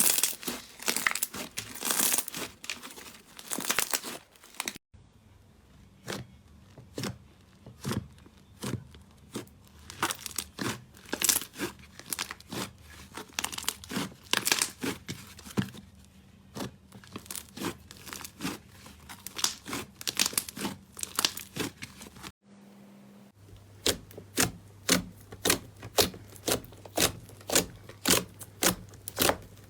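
Slime being squeezed and pressed by hand, giving a run of sharp crackling and popping clicks. The sound changes abruptly twice, and the last stretch has fairly regular pops, about two a second.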